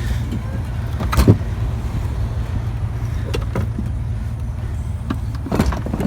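Vehicle engine running with a steady low rumble, broken by a few short knocks and clatters, the loudest about a second in and several more near the end.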